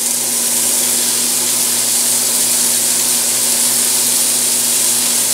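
King trumpet mushroom slices, Chinese broccoli stems and carrots sizzling steadily in sesame oil in a hot frying pan, with a steady low hum underneath.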